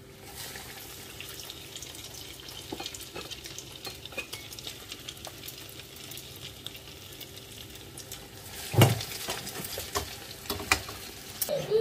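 Hot cooking oil sizzling and crackling steadily as breadcrumb-coated bread samosas deep-fry in a pot. There is a sharp, louder knock about nine seconds in.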